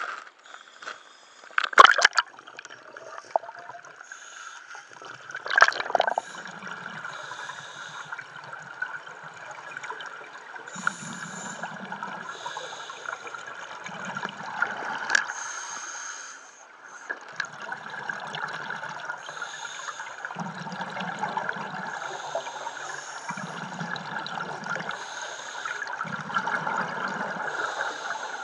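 Scuba regulator breathing heard underwater: the diver's exhaled bubbles gurgle in regular bursts about every three seconds over a steady hiss. Two loud bursts of water noise come near the start as the camera goes under.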